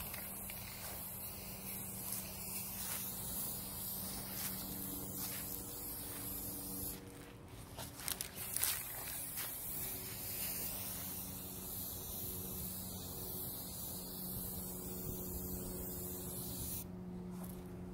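Aerosol can of Rust-Oleum metallic gold spray paint hissing as paint is sprayed onto the mirror frame. There are a few knocks about halfway through, and the spray stops near the end. A steady low hum runs underneath.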